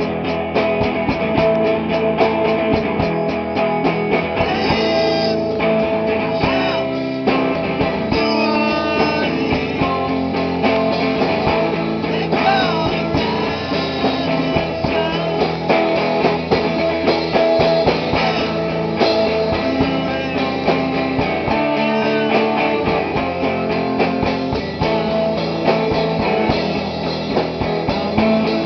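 Rock band playing live in rehearsal: guitars and drum kit, loud and continuous.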